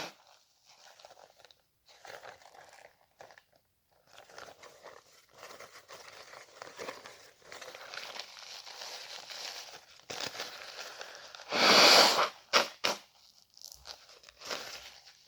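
Paper tissue crinkling and rustling as it is handled, then near the end one loud burst of air forced through the nose, followed by a few shorter ones.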